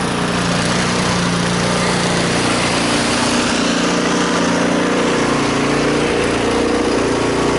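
Snowblower engine idling, really loud and steady, its pitch wavering slightly now and then.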